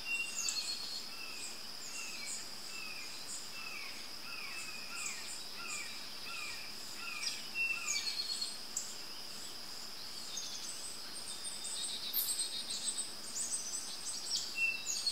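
Woodland insects droning steadily at a high pitch, with a bird singing a run of short, falling notes, about one and a half a second, that stops a little past halfway, and other high bird chirps scattered through.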